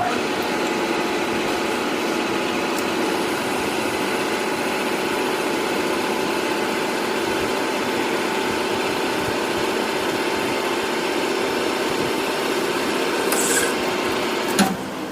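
Metal-cutting machine tool running steadily while machining a weld build-up on a steel shaft, a constant hum with a held tone under the cutting noise. Near the end a short hiss, then a click as the level drops.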